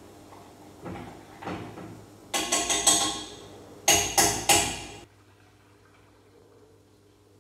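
A short burst of percussive music: two quick runs of bright struck notes about a second apart, after a couple of fainter hits, cutting off abruptly, then quiet room tone.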